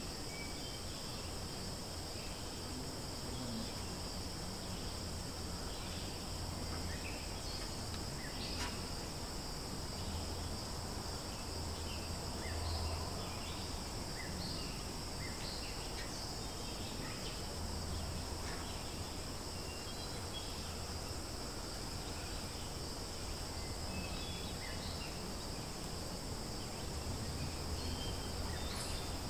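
Steady, high-pitched insect drone, likely cicadas or crickets, with a few faint short chirps scattered through it and a low rumble underneath.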